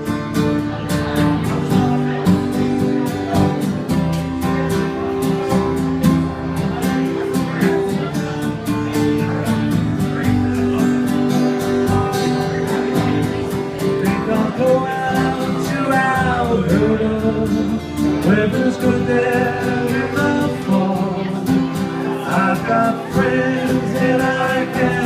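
Acoustic guitar strumming steady chords as a song introduction, with a wavering melody line coming in about halfway through.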